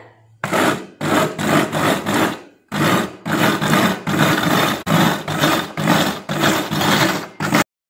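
Electric food chopper running as its blades coarsely chop fried green chillies, shallots and tomato into a sambal paste. It runs in a quick series of surges, stops briefly about two and a half seconds in, then runs again and cuts off just before the end.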